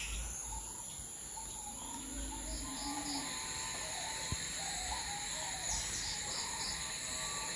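Crickets and other night insects trilling steadily in several high-pitched tones, with short pulsing chirps every half second or so and scattered faint lower chirps.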